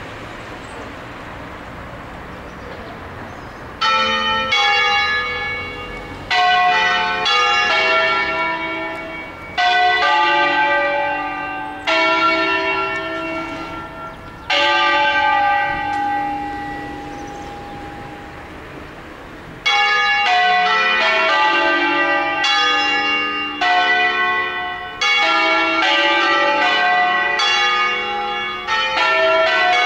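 Five church bells of a peal cast by Angelo Ottolina in 1947, swung and rung in a Bergamasque 'concerto solenne'. Quick runs of strokes at several pitches are broken by pauses in which the ring dies away: a fading hum for the first few seconds and again just past the middle, then a dense run of strokes over the last ten seconds.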